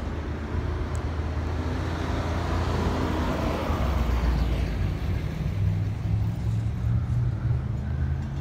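A car driving past, its noise building to a peak about four seconds in and then fading, over a steady low engine hum.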